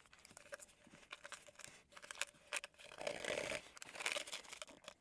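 A small sample packet of Bucked Up pump powder being handled and torn open by hand: faint crinkling and crackling of the wrapper, with denser tearing about three seconds in.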